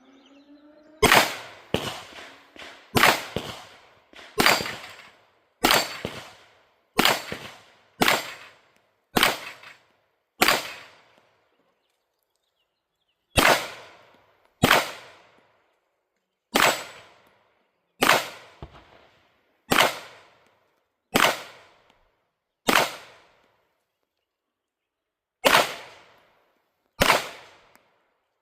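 Canik Rival 9mm pistol fired in aimed single shots at steel targets, about twenty in all at roughly one a second, each a sharp crack with a short echoing tail, with a few pauses of two to three seconds between strings.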